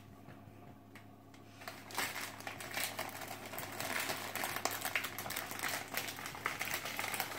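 Crinkly plastic gift wrapping rustling and crackling as it is handled and a dog bites at it. It starts about two seconds in and grows louder toward the end.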